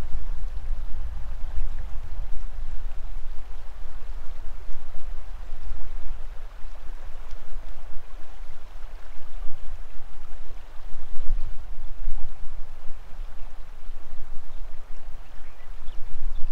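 Mojave River flowing, running high with snowmelt, as an even wash of water. Under it, an uneven low rumble that rises and falls, like wind buffeting the microphone.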